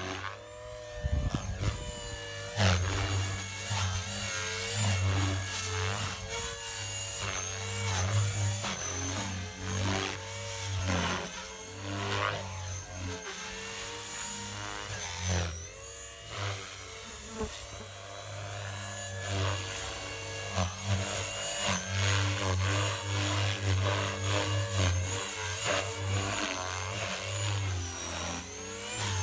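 Blade 360 CFX electric RC helicopter in flight: a buzzing rotor and a whining motor whose pitch keeps rising and falling as it maneuvers.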